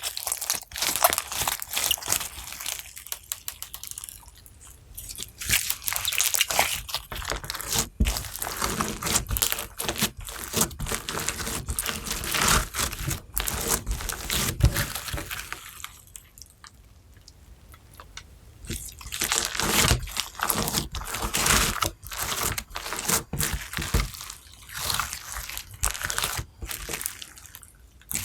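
Thick slime being squished and worked, with dense crackling, clicking and wet popping. It goes quieter twice, at about 4 seconds and again for a few seconds past the middle.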